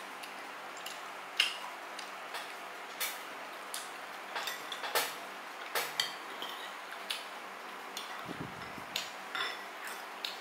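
Cutlery clinking and tapping on plates and bowls during a meal: irregular light clicks, one or two a second, over a steady faint hum.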